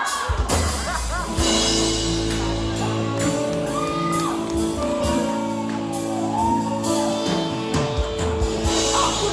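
Music playing for a sung Filipino song: sustained chords, with a voice singing a melody over them.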